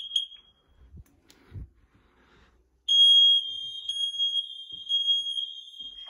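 Ceiling smoke alarm sounding on test: a few short high-pitched beeps at the start, then after a pause of about two seconds a loud, piercing continuous alarm tone from about three seconds in.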